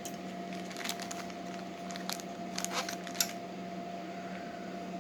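Light metallic clicks and taps of small steel lock picks being handled and set down, a handful of them over about three seconds.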